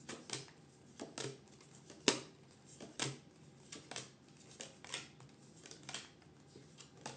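Tarot cards being handled: a string of short, crisp card flicks and taps, irregular, about two a second, with the sharpest one about two seconds in.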